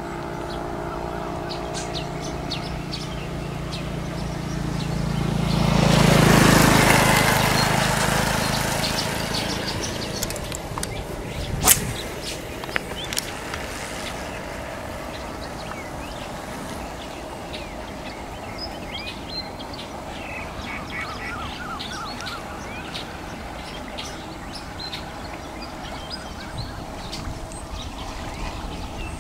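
A motor vehicle running and passing, its noise swelling to a peak about six seconds in and fading by about ten, with a single sharp click near twelve seconds. After that, birds chirp faintly over a quiet outdoor background.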